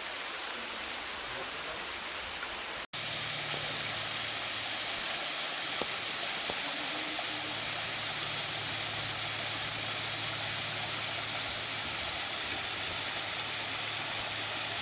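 Steady rushing of a waterfall, an even hiss of falling water. It drops out for an instant about three seconds in, and after that a faint low hum sits underneath.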